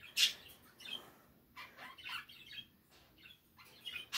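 Pet bird chirping and squawking in a string of short calls, about seven in four seconds, with brief quiet gaps between them.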